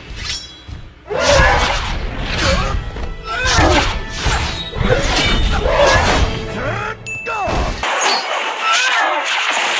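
Animated-film action soundtrack: music mixed with crashes and thuds over a heavy low rumble. The rumble cuts off abruptly near the end, leaving the higher sounds.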